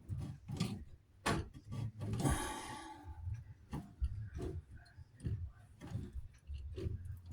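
Irregular clicks and knocks of a wrench working a water shutoff valve fitting onto the hot-water supply pipe under a sink, with a short rustling hiss a little over two seconds in.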